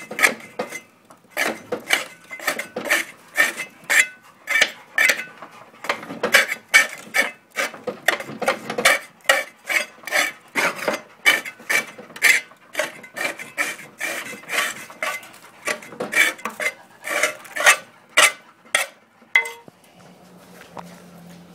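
Hand scraper scraping caked-on dried grass, dirt and mud off the rusty steel underside of a Craftsman push mower deck, in quick repeated strokes of about two a second that stop near the end.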